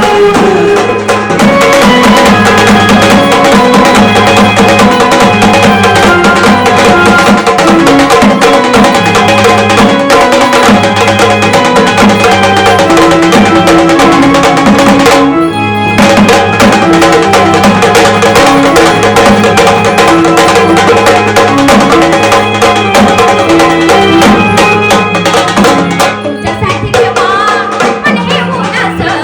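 Instrumental passage of gondhal devotional music: sambal drums played in a dense, driving rhythm over an electronic organ's sustained melody and repeating bass line. The drumming breaks off for a moment about halfway through, then picks up again.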